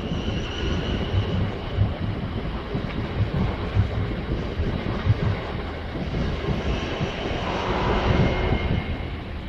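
South West Trains passenger train running past across the level crossing, a steady mechanical rumble that eases off near the end as the last coach clears, with wind buffeting the microphone.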